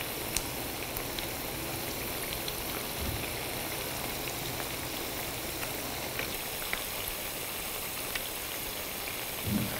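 Moringa leaf and flower bhaji fritters deep-frying in hot canola oil in an electric skillet: a steady sizzle with a few faint ticks scattered through it.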